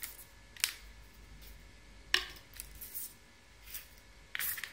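Black plastic cable ties being handled and set down on a table: a few light clicks and ticks, the sharpest about two seconds in and a short cluster near the end.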